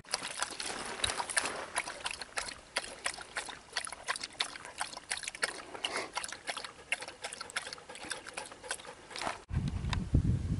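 Sighthounds lapping water from a bowl: quick, irregular wet laps and splashes. Near the end this cuts to a short low rumbling noise.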